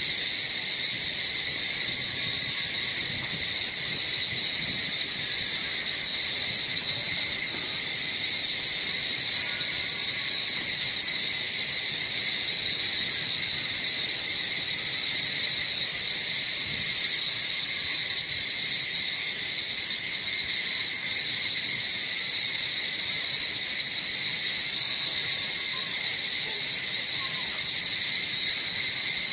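Chorus of insects making a steady, unbroken high-pitched buzz.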